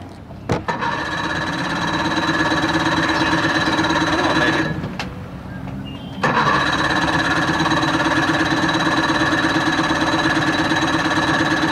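1987 Johnson 40 hp two-stroke outboard being cranked by its electric starter in two long bursts with a short break between, a fast even churning, without the engine catching. The engine is flooded.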